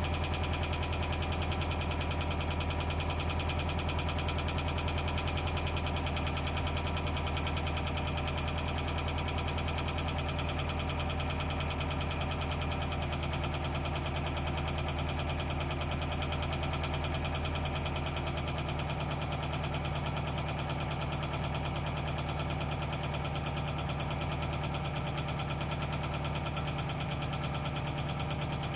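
Subaru engine idling steadily with a rhythmic knock running through it, a knock whose cause the owner is trying to find.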